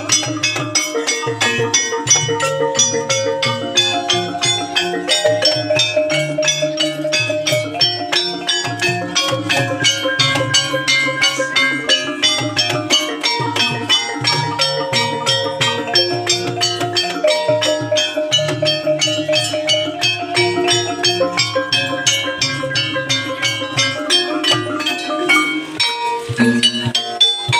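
Javanese gamelan music of the kind played for ebeg (kuda lumping) dance: bronze metallophones play a fast, dense run of pitched strokes over a steady drum rhythm.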